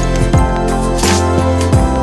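Background music: a steady instrumental track with a bass line and a regular beat.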